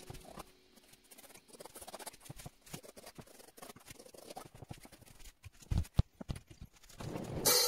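Paintbrush scratching and tapping on a canvas with acrylic paint: a quiet, irregular run of small scratchy ticks, with two dull thumps just before six seconds. A strummed guitar comes in near the end.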